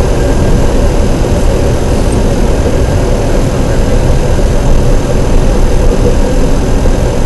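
Light aircraft engine running steadily, heard loud from inside the cockpit as the plane moves along the runway.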